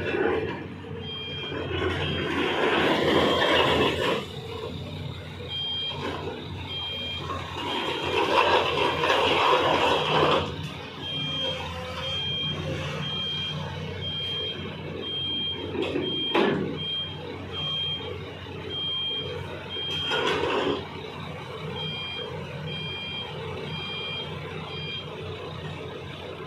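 Heavy-equipment travel alarm beeping steadily, about once a second, over a running diesel engine. The engine noise swells several times as the machine works, most strongly about a third of the way in.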